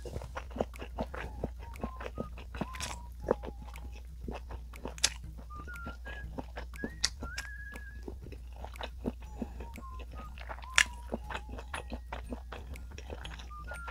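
Close-miked chewing of rice and side dishes, including braised black soybeans: a dense, irregular run of small crunches and wet mouth clicks, with a few sharper bites.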